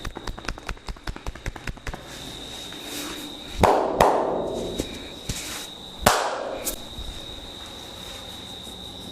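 Percussive massage by hand on a client's body: a fast run of light tapping strikes, then three loud slaps, two close together and one a couple of seconds later, each ringing out briefly.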